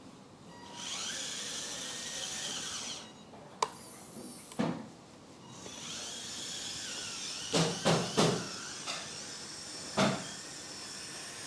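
Electric hydraulic pump of a 1/14-scale RC hydraulic excavator whining as it runs, in two stretches, with sharp knocks between and during them: one each at about three and a half and four and a half seconds in, a quick cluster of three around eight seconds in, and one more near ten seconds.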